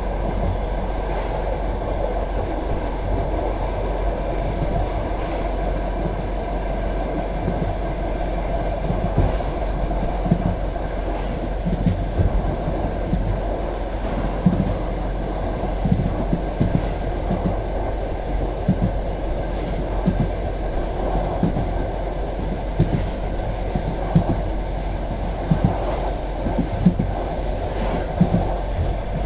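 Passenger train carriage running along the track: a steady rolling rumble of wheels on rail, with the clickety-clack knocks of wheels crossing rail joints coming more often in the second half.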